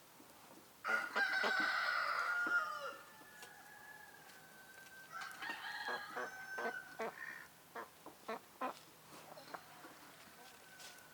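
A rooster crows loudly about a second in, its call falling at the end. A second, quieter crow follows a few seconds later, then a few short clucks and clicks.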